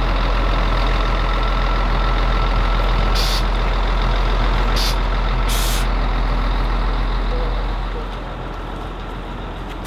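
Coach bus engine idling with a steady low hum, with a few short hisses of air; it gets quieter about eight seconds in.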